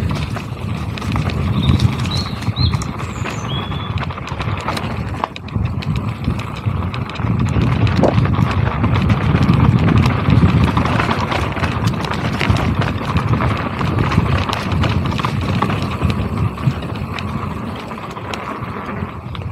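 Mountain bike riding down a rough dirt trail: tyres rumbling over dirt and leaves, the bike rattling and knocking over bumps in quick irregular clicks, over a low wind rumble on the microphone. A few short high chirps sound about two to three seconds in.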